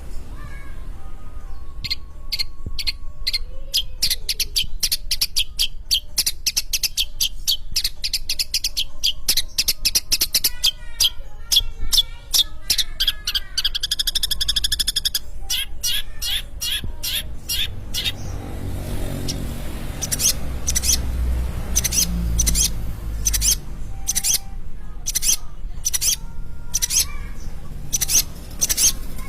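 Long-tailed shrike (cendet) singing: fast runs of sharp, chattering notes, a warbled phrase about halfway through, then spaced harsh calls repeated near the end.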